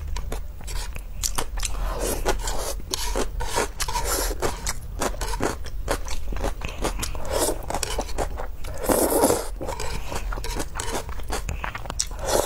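Close-miked mukbang eating sounds: wet chewing and slurping of jjajangmyeon noodles in black bean sauce, with many small mouth clicks and a few louder slurps.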